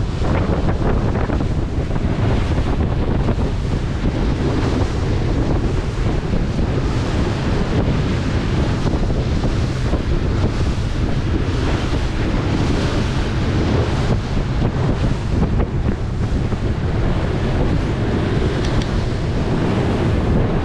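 Steady wind buffeting the microphone of a moving boat, with water rushing past the hull underneath.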